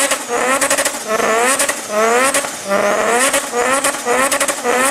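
Rotary (Wankel) engine revved hard again and again: its pitch climbs steeply, breaks off and climbs again about six times, with sharp crackles between the revs.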